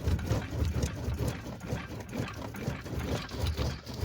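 Wheel arch roller being worked back and forth on a Mercedes CLK's wheel arch, a fast rhythmic mechanical rumble of about four strokes a second, as it rolls out a dent in the arch lip.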